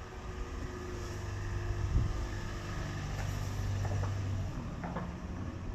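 Car driving slowly past, its engine a low steady hum that grows louder over the first few seconds and then eases a little, with a short thump about two seconds in.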